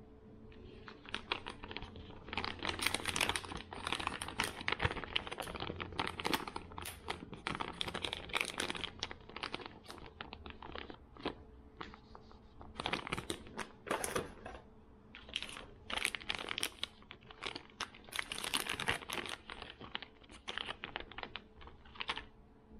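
Plastic fishing-lure packaging, soft-plastic bait bags and blister packs, crinkling and clicking as it is handled, with a quieter stretch about halfway through.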